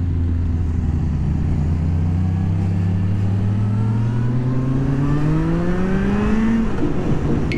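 Motorcycle engine accelerating under load, heard from the rider's seat: its pitch climbs steadily for several seconds, then drops abruptly near the end.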